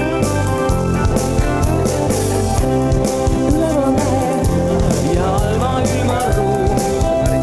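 Music with a steady drum beat and a sung vocal line.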